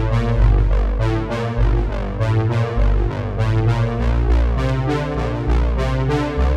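Background music on synthesizer and keyboard, with many quick notes over a deep bass line that shifts every second or so.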